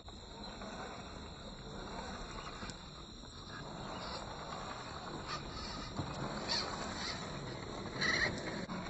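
A Traxxas TRX-4 RC rock crawler with a Hobbywing Fusion Pro brushless motor, its motor and drivetrain running as it crawls over rough ground. A few short louder knocks or scrapes come about four, five, six and a half, and eight seconds in.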